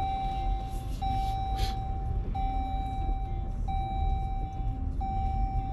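A car's electronic warning chime sounding as a string of long, even beeps, about one every 1.3 seconds, over the rumble of the vehicle rolling along a rough unpaved road.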